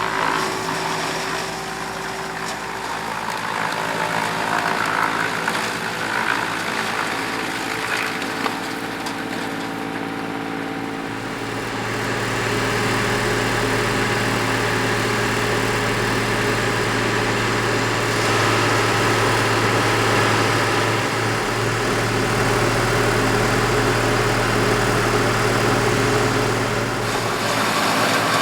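A steady mechanical hum that becomes louder and deeper about eleven seconds in.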